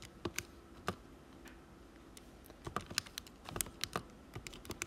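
Keys being tapped to add up a sum on a calculator: a few sharp clicks about a second in, then a quicker irregular run of key presses over the second half.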